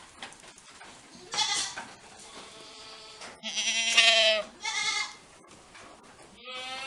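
Saanen dairy goats bleating: four or five separate calls, the loudest and longest a wavering bleat about four seconds in.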